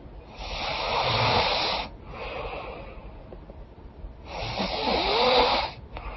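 A woman snoring in her sleep through a congested nose: two loud, rasping snoring breaths about three seconds apart, each lasting about a second and a half, with a quieter breath between them.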